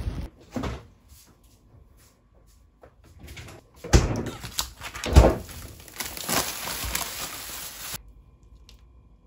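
A kitchen door is handled, with two thumps about four and five seconds in, the second the louder. Plastic packaging then rustles and cuts off suddenly near eight seconds.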